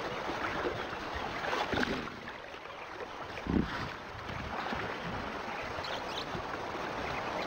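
Water sloshing and splashing as a herd of hippos moves through a river, with a short low thump about three and a half seconds in.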